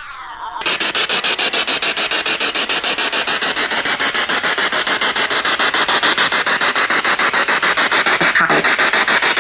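Loud radio static, chopped into rapid, even pulses of about eight a second, starting about half a second in. It breaks off briefly near the end.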